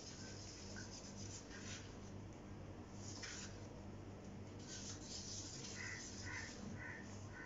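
Wooden stick stirring and scraping thick white paint around the inside of a small cup while it is thinned with water, giving faint scraping strokes, clearest about three and five seconds in.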